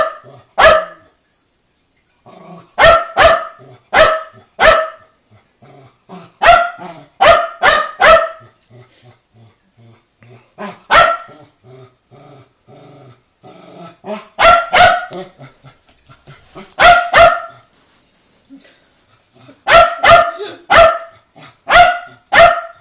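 Shetland sheepdog barking in sharp clusters of two to four barks with pauses of a second or more between, and low grumbling between some clusters. It is demand barking: a temper tantrum at not being given the food it wants.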